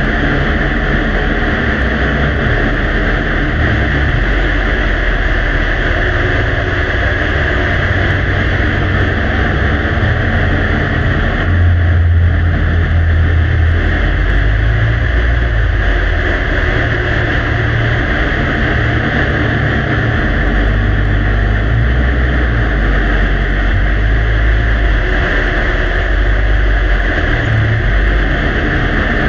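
Heavily amplified background noise from a faint recording: a steady hiss with a low rumble underneath, swelling a little about twelve seconds in.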